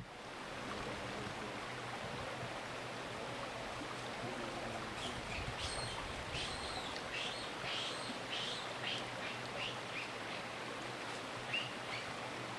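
Woodland ambience: a steady hiss with small birds chirping in short, repeated high notes from about five seconds in.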